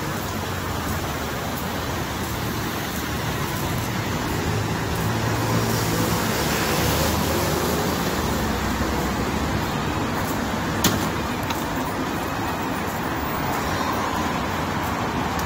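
City street traffic: a steady din of passing cars, with a vehicle's low engine hum swelling and fading in the middle. A single sharp click about eleven seconds in.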